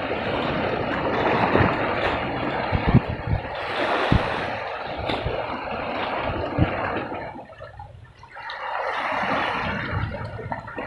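Sea waves washing and splashing around shoreline rocks, with a few dull thumps and a brief lull about three quarters of the way through.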